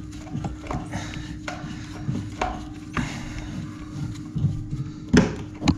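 Small scrapes and clicks of a toilet cistern-to-pan bolt being undone by a gloved hand, with a couple of louder knocks near the end.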